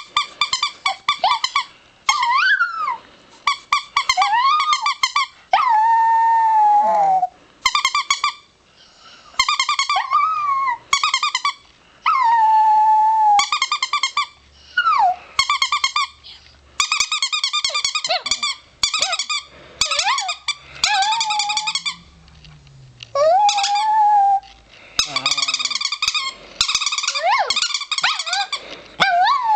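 Chihuahua howling several times, each howl a drawn-out wavering note that glides in pitch. Between and over the howls a squeaky plush toy is squeezed in many short bursts of rapid squeaks, the loudest sound.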